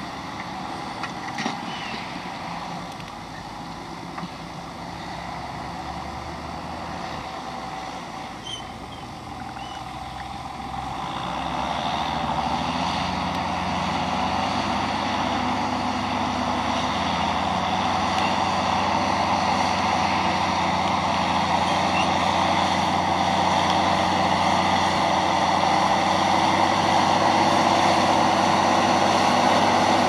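John Deere 6910 tractor's six-cylinder diesel engine running steadily under load while pulling a five-furrow plough through the soil. It grows louder from about ten seconds in as the tractor comes closer.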